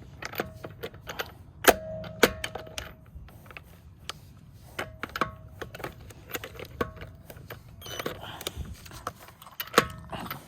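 Irregular metal clinks and clanks of an impact wrench and socket being handled and fitted onto a wheel bolt. Some knocks leave a brief ringing note, and the loudest come about two seconds in.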